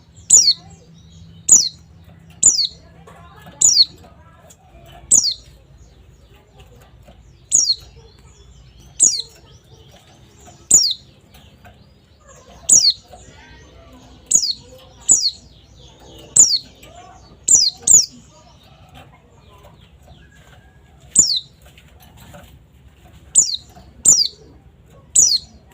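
Pleci (white-eye) giving short, high, downward-slurred calls, one about every second, with pauses, the longest of about three seconds partway through.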